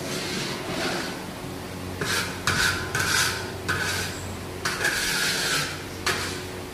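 Long-handled metal spatula scraping and stirring thick curry in a large metal wok, in about five scraping strokes starting about two seconds in, over a steady low hum.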